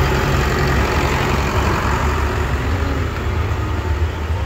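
Farm tractor's diesel engine running steadily with a low engine note as a tractor pulling a decorated wagon goes past.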